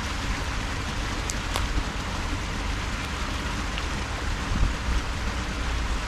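Steady rushing hiss of water at a canal, continuous and even, with a low rumble under it.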